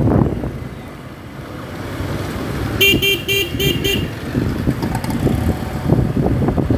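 Vehicle horn honked five times in quick succession, lasting about a second, over a steady low rumble of traffic heard from a moving motorcycle.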